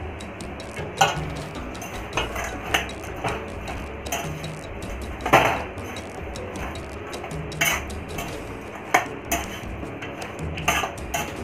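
Metal slotted spoon stirring chickpeas through thick sauce in an aluminium kadai, scraping and clinking against the pan at irregular intervals, with the loudest knock about five seconds in.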